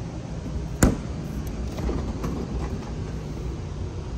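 Steady low rumble of store background noise, with one sharp knock about a second in.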